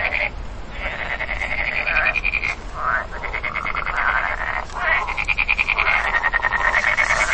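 A frog calling from the undergrowth: long runs of rapid pulsed croaking, broken by brief pauses about half a second in, near three seconds and just before five seconds.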